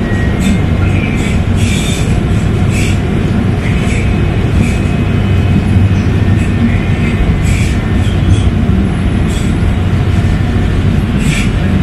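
Kinki Sharyo SLRV light rail car running along the track, heard from inside the cabin: a steady low rumble with faint high whines and scattered light rattles.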